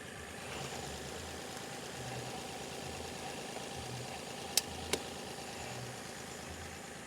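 Car engine idling steadily after a jump start. Two sharp clicks come about half a second apart, a little past halfway.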